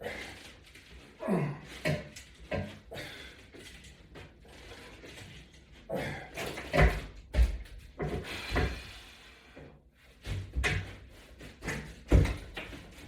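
Irregular knocks, clacks and thuds of home exercise equipment being worked, with a few heavier thuds around the middle and near the end.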